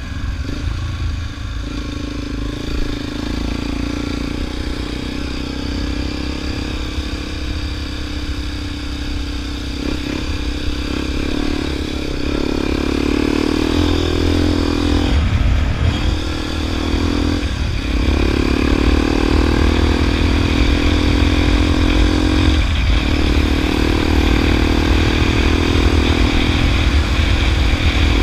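Motorcycle engine running as the bike rides along a dirt road, getting louder about halfway through, its note breaking off briefly three times, over a heavy low wind rumble on the microphone.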